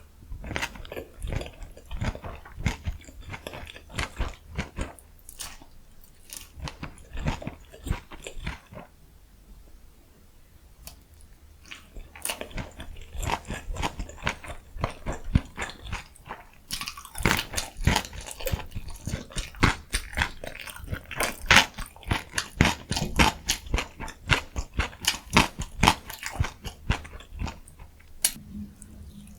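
Close-miked mouth sounds of someone chewing food, with many small wet clicks in rhythmic runs. The chewing goes quieter about a third of the way through, then picks up again, faster and louder, for most of the rest.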